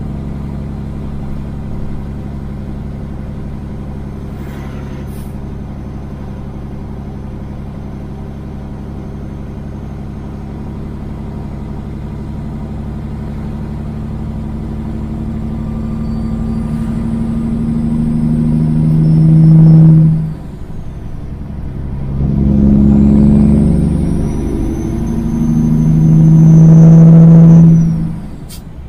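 Kenworth semi truck's diesel engine through loud straight pipes, pulling through the gears: the exhaust grows louder under load and drops off sharply at a shift about two-thirds in and again near the end, with a faint high whistle rising and falling with each pull.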